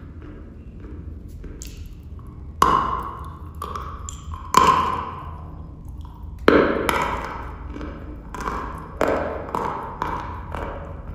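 Dry chalk being bitten and chewed: three loud crunching bites about two seconds apart, then a quicker run of smaller crunches as it is chewed.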